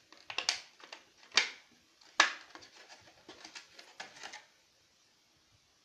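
Clear plastic packaging crinkling and crackling as it is handled and pulled open, with three sharp, louder crackles in the first two and a half seconds and a run of smaller ones that ends about four and a half seconds in.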